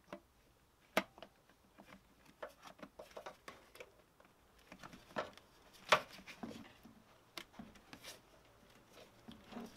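Handling noise from fitting an engine ECU and its multi-pin connector: scattered light clicks, taps and rustles, with sharp clicks about a second in and about six seconds in.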